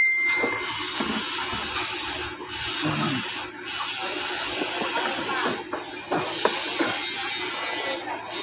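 Steady hiss with scattered light clicks and scrapes of hands working a fog lamp assembly into its housing in a plastic front bumper.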